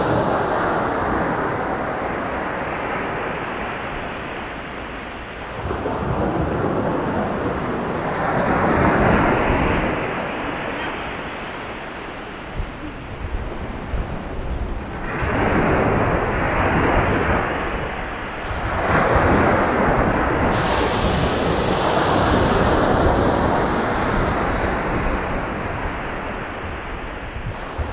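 Sea waves breaking and washing up a sandy beach, coming in surges every few seconds, each swelling and then fading.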